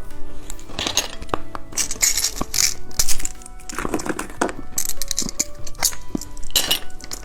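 Background music with a steady melody of held notes, over repeated crinkling and clicking of plastic candy packaging being handled and opened.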